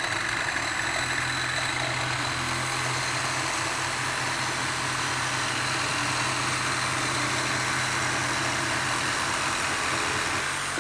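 Two corded reciprocating saws running together and cutting through a clamped metal pipe, one fitted with a Diablo carbide-tipped metal-cutting blade and the other with a Lenox blade. A steady motor drone under a constant rasping hiss of blades in metal, dropping off at the very end.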